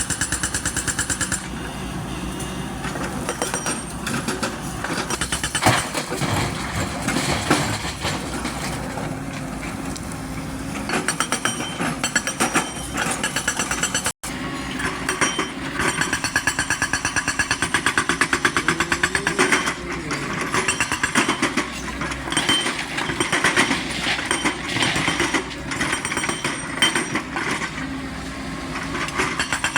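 XCMG excavator's diesel engine running with a fast, rapid pulsing, working under load while loading. The sound drops out for an instant about halfway through.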